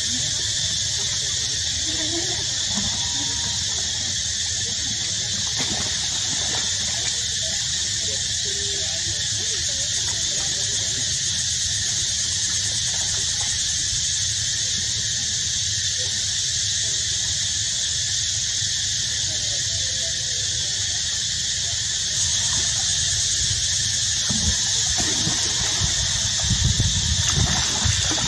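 A steady, high-pitched insect chorus, even and unbroken, with a low rumble beneath it that grows louder in the last few seconds.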